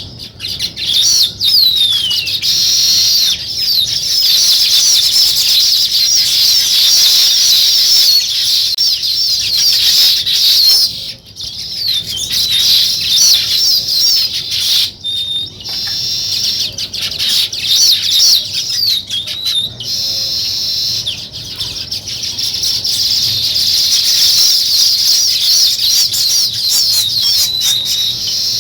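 A flock of small birds chirping and chattering continuously, many calls overlapping, with short falling notes among them. The chorus thins briefly twice, around the middle.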